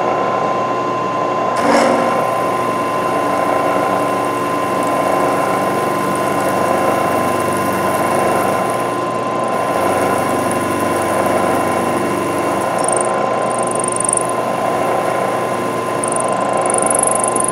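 Milling machine spindle running in high gear while the cutter feeds into a round metal workpiece and throws chips. A steady high tone sits over the rough noise of the cut, with a short knock about two seconds in.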